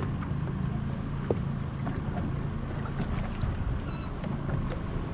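Boat motor running steadily with a low hum, with wind on the microphone. A single sharp click about a second in.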